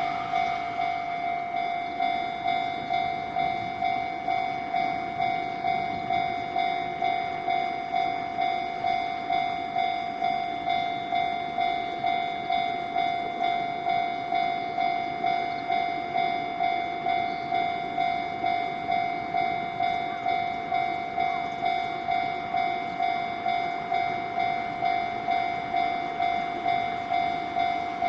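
Japanese level-crossing warning bell ringing steadily, about three dings every two seconds, over the low rumble of a freight train rolling past the crossing.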